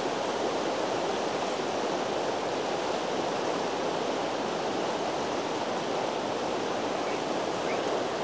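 Fast river water rushing over rocks through white-water rapids, a steady, even rushing with no breaks.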